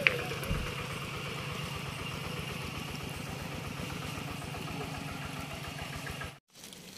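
A small engine idling steadily with an even pulse, cutting off abruptly about six seconds in.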